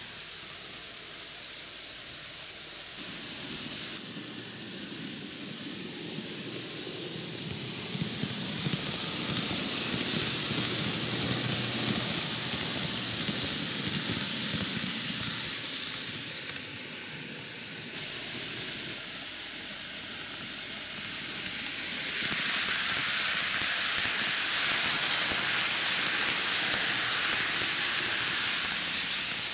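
N-gauge model train (Microace Keio 9000 series) running on sectional plastic track: a steady rolling hiss from the wheels and motor. It swells twice as the train comes close past, first about a third of the way in and again near the end.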